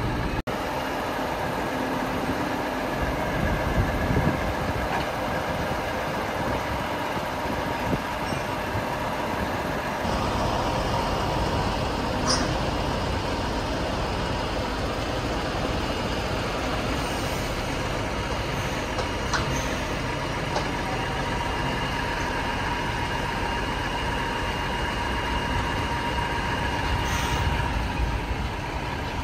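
Diesel truck engine running steadily, a low drone with a few held hum tones, with a single sharp click about twelve seconds in.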